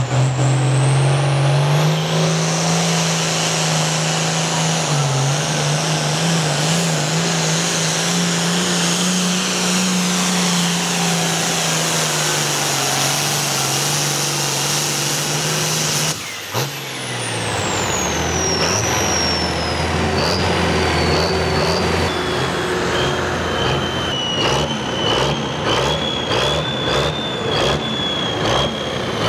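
Ford 9600 super pro farm pulling tractor's turbocharged diesel running flat out under load, at a steady pitch. About sixteen seconds in it breaks off and a high whine falls away, then the engine runs lower with a high whine and a regular pulsing near the end.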